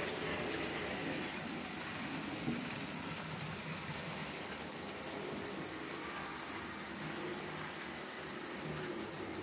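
H0-scale model train running along the layout: a steady engine-like hum with no sharp events.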